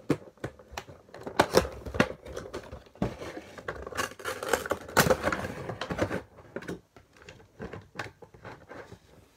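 Cardboard Funko Pop box being opened by hand: the top flap pulled open and the clear plastic insert slid out, giving a run of clicks, scrapes and crinkles of cardboard and plastic that is busiest in the middle and thins out near the end.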